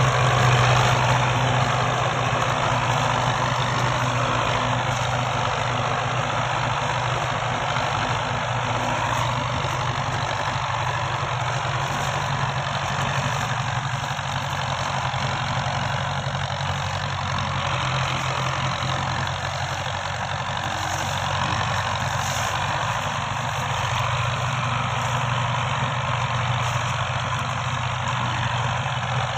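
Diesel engines of two Belarus 510 tractors running steadily, hitched in tandem to pull a heavily loaded sugarcane trolley.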